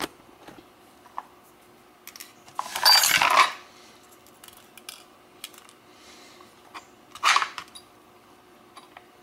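Small metal lock parts being handled: light clicks and taps from a Schlage lock core and its pins and springs, with a louder scraping rattle about three seconds in and a shorter one about seven seconds in.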